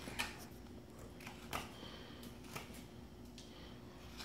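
Faint, irregular scrapes and small clicks of a small Mora carving knife shaving a wooden spoon handle by hand, a few strokes a second apart.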